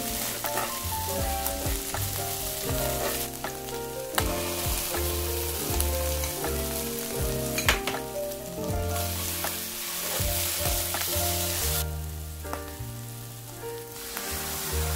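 Scrambled eggs sizzling in a nonstick frying pan while a spatula stirs and breaks them up, with scrapes and taps of the spatula against the pan. The sizzle drops off for a couple of seconds near the end, then returns.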